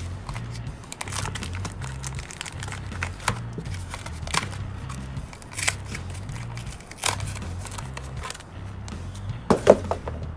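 Cardboard packaging being worked off a metal footpeg by hand: crinkling and scraping with scattered sharp clicks, and a louder cluster of snaps near the end. Background music with a steady bass line runs underneath.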